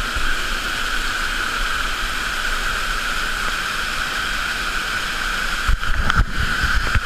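Waterfall water rushing in a steady, even noise, with a few low knocks or bumps about six seconds in.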